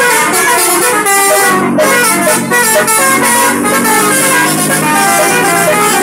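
Telolet horns, a set of multi-tone air horns, playing a quick melody of short notes.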